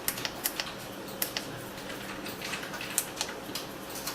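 Irregular sharp clicks of buttons being pressed on an NF8601 handheld network cable tester while an IP address is entered, a few presses a second, over a faint steady hum.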